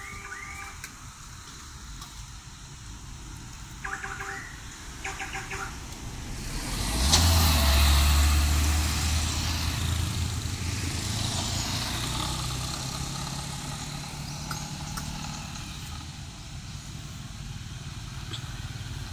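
Road traffic going by, a motorbike among it: engine noise comes in suddenly and loudly about seven seconds in, with a low hum, then slowly fades.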